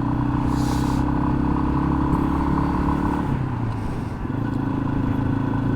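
2021 Yamaha XT250's single-cylinder engine running steadily under way. A little past three seconds in, the engine note falls and the level dips briefly, then it steadies again.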